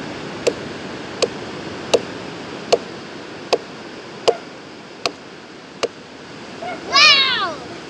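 A cleaver chopping into nipa palm fruit on a wooden log: eight sharp, even chops about every three-quarters of a second. Near the end comes a short cry that falls in pitch, louder than the chops.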